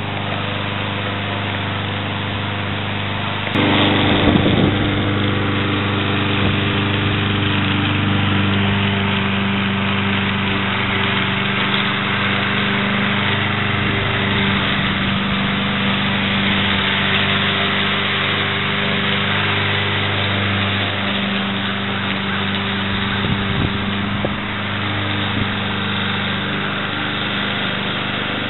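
Ariens BRSP21 walk-behind mower's Kohler Courage 173cc single-cylinder engine running steadily under load while mowing and bagging dry leaves. A brief louder rustling knock comes about four seconds in.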